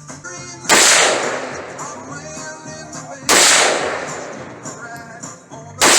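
Three rifle shots about two and a half seconds apart, each a sharp crack followed by a long fading echo.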